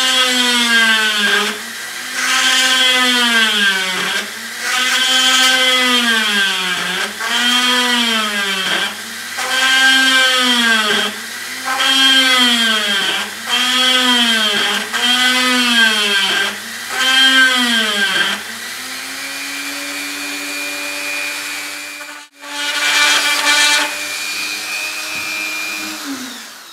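Flexible-shaft rotary tool with a small bit drilling holes in thin aluminium, its motor whining. The pitch sags and recovers about ten times, roughly every second and a half, as the bit is pressed into the metal and eased off. After that the whine runs steadier, cuts out for a moment about three-quarters of the way through, and starts again.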